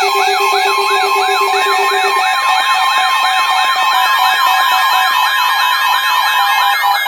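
Emergency alert siren sound: electronic yelp sirens sweeping rapidly up and down, about three sweeps a second, layered over steady alert tones. A lower steady tone stops about two seconds in, and a second, higher-pitched sweeping siren joins.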